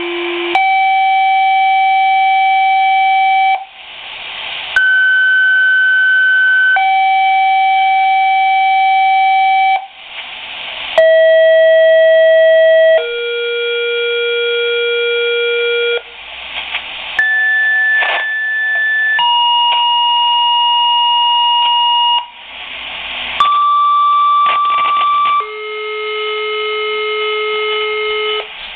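Fire department pager sounding two-tone dispatch alert tones through its small speaker: long steady tones, each held two to three seconds before jumping to another pitch, several tone sets in a row with short bursts of radio static between them, each set paging a different unit.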